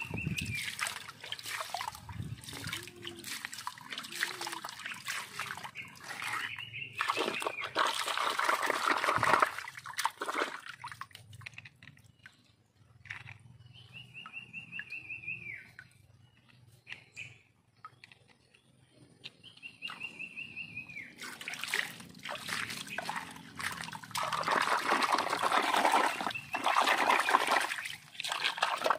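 Shallow water splashing and sloshing as hands work in it around toy dump trucks, loudest in two long spells, with trickling between. A few short high wavering calls sound in the quieter stretches.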